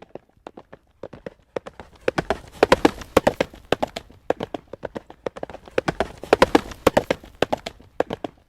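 Horse hooves trotting on a paved road: a quick, uneven clip-clop of hoof strikes, loudest around two to three seconds in and again around six to seven seconds in.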